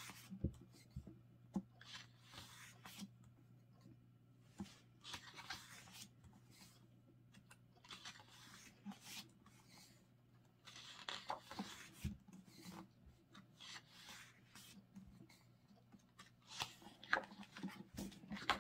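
Glossy pages of a photobook being turned by hand: faint paper swishes and rustles several times, with a low steady hum underneath.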